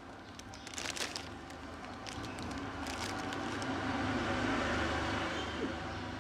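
Crinkling and crunching of instant-noodle packets and dry noodle bricks being handled, over a steady low hum. A louder rushing noise swells about halfway through and eases off near the end.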